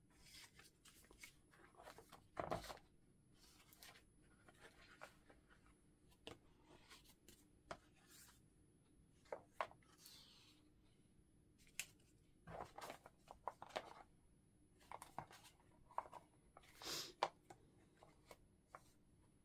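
Faint rustling, sliding and tapping of paper and card pieces being handled and sorted in a clear plastic storage box, in short scattered bursts with a few louder shuffles.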